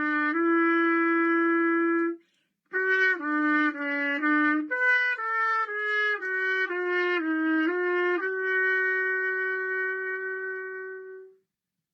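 A single wind instrument playing a slow unaccompanied melody: a long held note, a brief break about two seconds in, a run of shorter stepwise notes, then a final long held note that fades out near the end as the piece closes.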